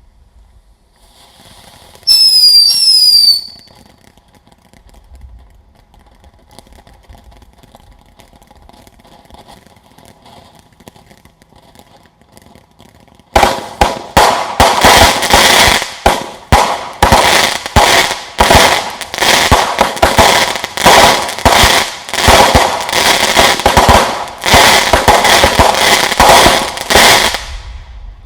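A string of firecrackers going off in rapid, uneven succession for about fourteen seconds, starting about halfway in and stopping shortly before the end. Earlier, about two seconds in, a firework gives a short whistle that drops in pitch.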